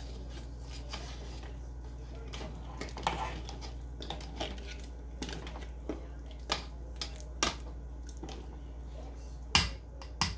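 Scattered light clicks and knocks of kitchen utensils and cookware being handled, with a few sharper knocks close together near the end.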